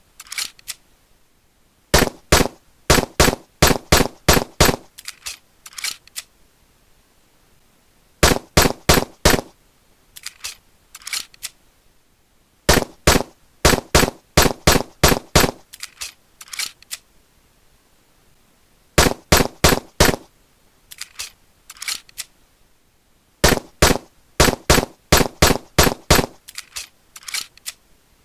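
9mm pistol gunfire: strings of sharp shots fired several a second, in bursts of a few seconds with short pauses between, and fainter shots trailing some of the strings.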